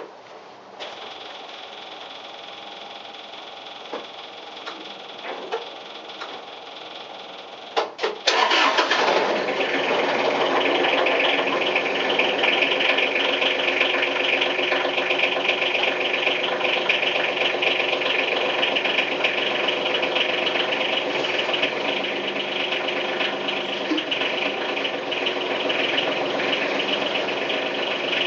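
Yanmar SC2450 compact tractor's three-cylinder diesel cold-started after glow-plugging at about 20°F. A steady high tone sounds for several seconds. About eight seconds in, the starter cranks briefly and the engine catches almost at once, then runs steadily at idle.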